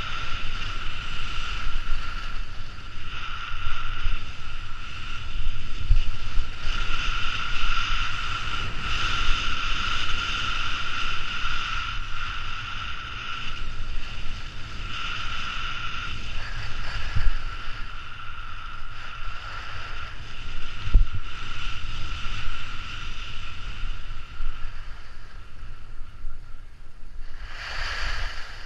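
Wind buffeting an action camera's microphone on a skier descending a groomed piste, with the skis scraping over packed snow and a high whistle that comes and goes. Near the end a short, louder hiss follows as the skis skid to slow down.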